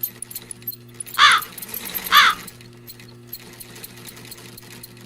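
Two crow caws about a second apart, each a short harsh call, over a low steady hum.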